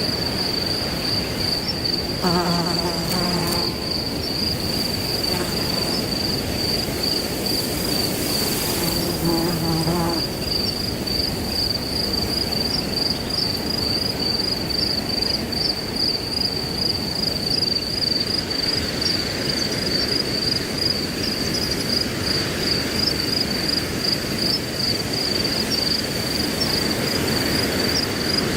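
Crickets chirping in a continuous, finely pulsing high trill over wind rushing through grass. Twice, about two seconds in and again about nine seconds in, a short low-pitched call or hum sounds for a second or so.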